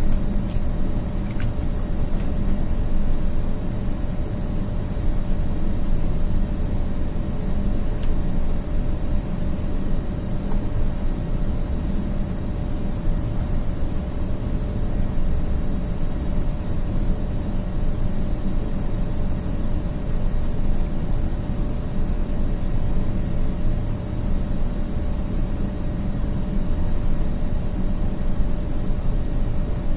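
Steady background rumble and hiss with a constant hum, unchanging throughout, with no distinct strokes or knocks standing out.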